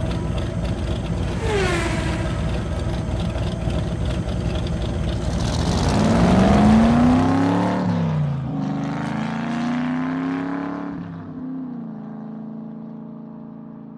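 A car engine running and revving: its pitch climbs from about six seconds in, dips, climbs again, then holds steady while the sound fades out near the end.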